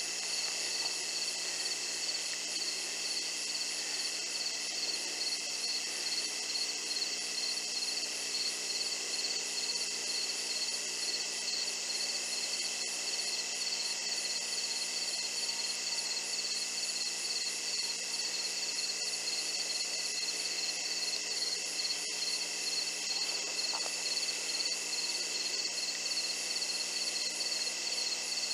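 Night insect chorus of crickets and other insects: several steady high-pitched trills layered together, some with a fast even pulse, running unbroken.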